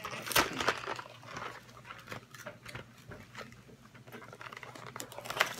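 A small cardboard candy box being pried open by hand: scattered crinkles and clicks of the cardboard flap, with a sharper snap about half a second in and another near the end.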